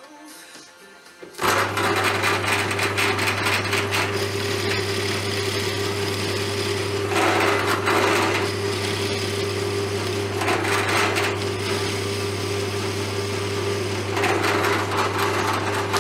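Bench drill press switched on about a second and a half in, its motor running steadily with a low hum. The bit cuts into plywood three times, each cut a louder, rougher swell in the sound. The drill press stops at the end.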